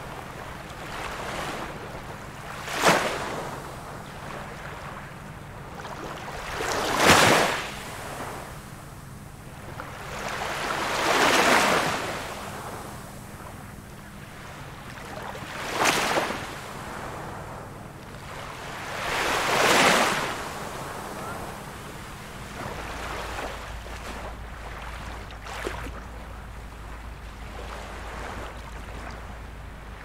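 Small ocean waves breaking on a beach, five swelling surges of surf about every four seconds, each rising and falling away, then only a softer wash of water near the end.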